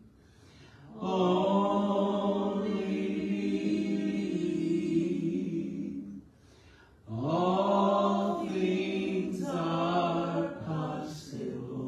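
Unaccompanied hymn singing, a man's voice through a handheld microphone, in two slow phrases of long-held notes with a short breath gap about six seconds in.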